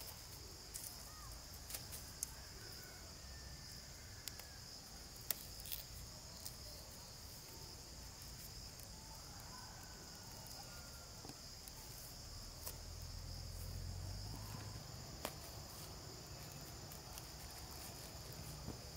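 Steady high-pitched chirring of insects. Now and then a faint tick or rustle as plastic mulch film is handled.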